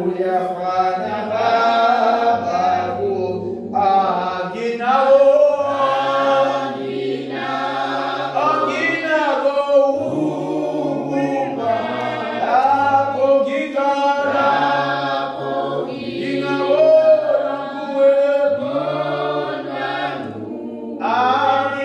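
Unaccompanied group singing of a hymn, several voices including low men's voices holding long, sliding notes.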